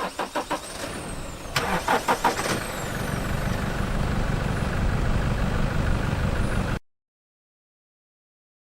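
Diesel engine of a Toyota 4x4 being cranked by the starter in two short spells, the second with a falling whine, then catching and settling into a steady idle. The sound cuts off abruptly about two seconds before the end.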